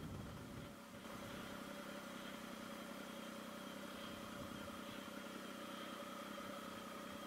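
Motorcycle running at low speed, heard faintly as a steady hum with a few high whining tones. A rushing noise dies away in the first second.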